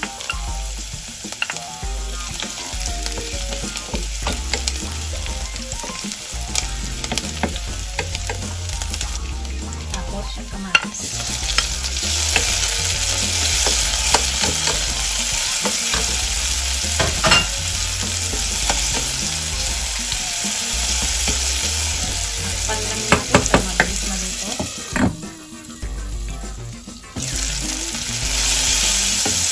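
Onion, garlic and tomato sizzling in hot oil in a stainless steel pan, stirred with a wooden spatula that clicks and scrapes against the pan. The sizzle gets louder about a third of the way through and drops away briefly near the end.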